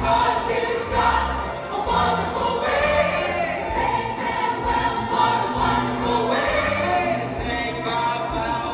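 Large mixed show choir singing a song together with instrumental accompaniment.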